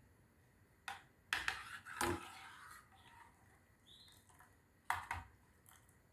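Kitchen utensils knocking: a few sharp clacks. The loudest comes about two seconds in with a short ring after it, and two more follow near the five-second mark. A brief high chirp sounds about four seconds in.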